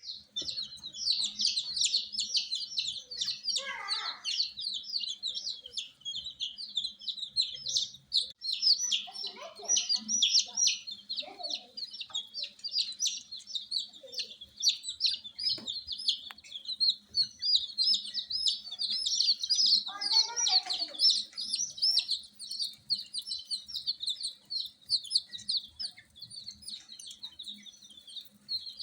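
Newly hatched chicks peeping loudly and without pause, many high, short chirps overlapping. A few lower calls break in now and then, around 4, 10 and 20 seconds in.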